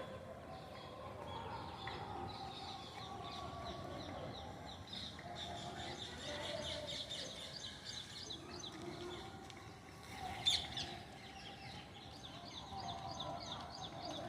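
A parrot and a squirrel fighting: rapid trains of high chirps mixed with lower calls, and one loud, sharp screech about ten seconds in.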